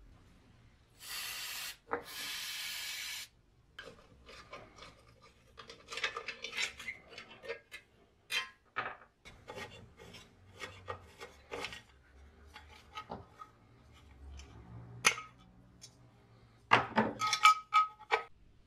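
Two short bursts of hiss, then irregular metallic clicks, scrapes and knocks as the rusty exhaust muffler of a lawn mower's Subaru engine is unbolted and handled. A cluster of louder clicks with a slight ring comes near the end.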